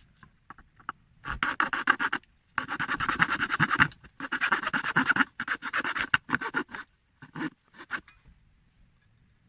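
Rough scraping strokes of a hand tool working a small carved figure, in about six bursts of half a second to a second and a half each, with short pauses between them.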